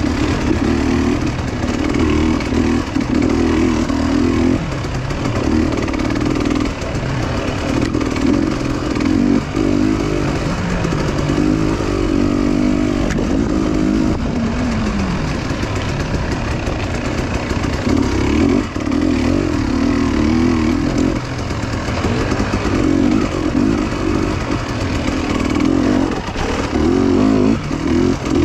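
Motorcycle engine running on the move, its revs rising and falling, with the engine note easing off for a few seconds about halfway through.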